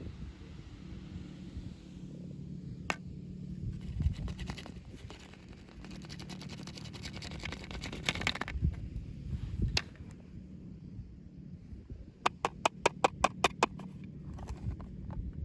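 Doll packaging being handled and opened by hand: plastic and cardboard rustling and scraping, with scattered clicks and a quick run of about ten sharp clicks near the end, over a low steady hum.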